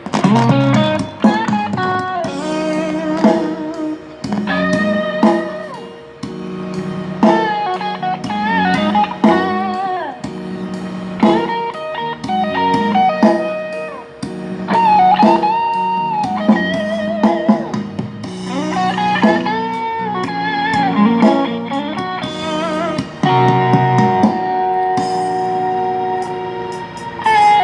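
Instrumental song intro: a lead guitar, likely electric, plays the melody with sliding, bent notes over a steady band backing.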